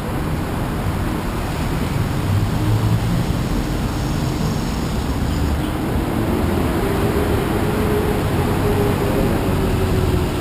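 Steady rumble of busy road traffic passing close by. In the second half an engine's drone rises slowly in pitch over the rumble.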